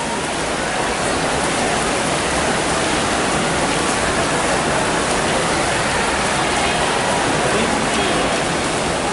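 Steady, even wash of noise in an indoor pool hall during a freestyle swimming race: swimmers splashing and spectators cheering, blended together.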